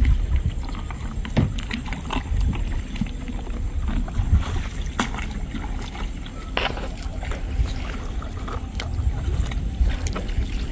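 Water sloshing and splashing as a plastic bucket is dipped and swished in shallow pond water, with scattered short splashes, over a low wind rumble on the microphone.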